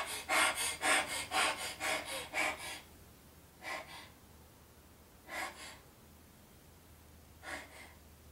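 A woman imitating a panting dog: quick, rhythmic panting breaths, about four a second, for the first three seconds, then three separate single breaths spaced a couple of seconds apart.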